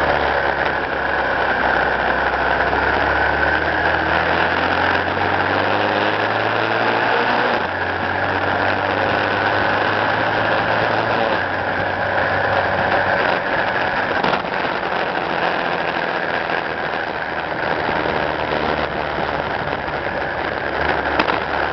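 Engine of a moving motor vehicle running steadily, its pitch rising and falling with changes in speed, over a constant rush of road and wind noise.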